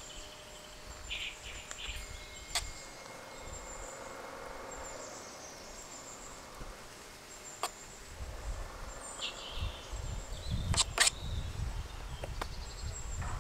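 Outdoor background with a few short bird chirps, and sharp clicks and light knocks from a metal spoon spreading meat filling over dough, the loudest pair near the end.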